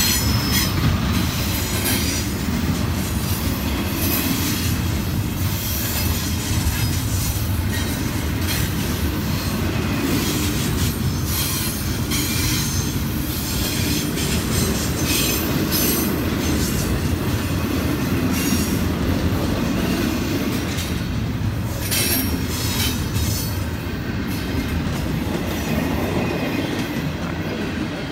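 A long train rolling past: a steady rumble of wheels on rail with intermittent clacks, and a high wheel squeal near the start.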